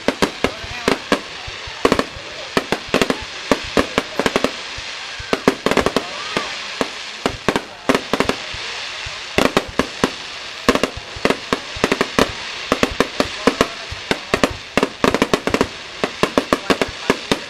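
Fireworks display going off: a dense, rapid run of sharp bangs and cracks, several a second, without a break.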